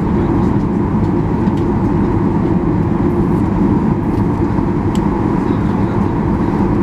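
Steady cabin noise inside a Boeing 737-800 taxiing: the low drone of its CFM56-7B engines at taxi power mixed with the rush of the cabin air supply.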